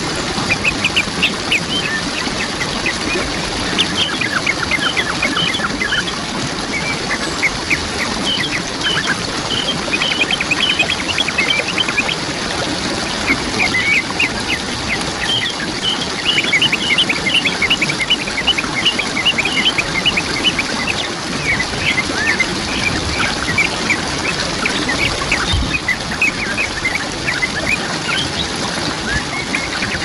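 Waterfall rushing steadily, with a chorus of birds calling over it in quick runs of short chirps.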